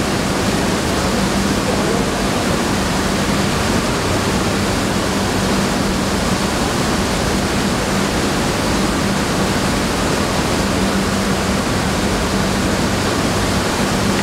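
Rice mill machinery running steadily: a loud, even rushing noise with a low steady hum underneath.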